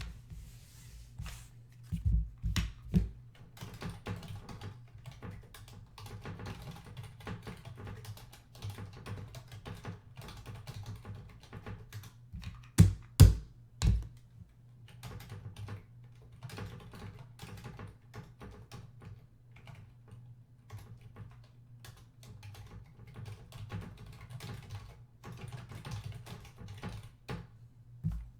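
Typing on a computer keyboard in quick runs of key clicks, with a few louder knocks about two seconds in and again near the middle, over a steady low hum.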